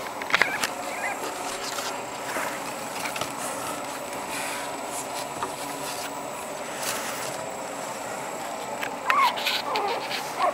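Six-week-old Boston terrier puppies giving short high whines and squeaks, loudest in a cluster near the end, with scattered clicks over a steady background hiss.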